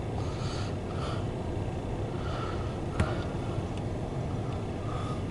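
CSX intermodal freight train rolling past, a steady low rumble heard from inside a car, with one sharp click about three seconds in.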